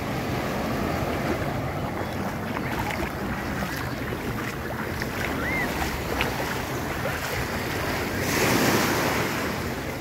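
Gulf surf washing onto a beach, a steady rush of waves with wind buffeting the microphone; one louder wave washes in near the end.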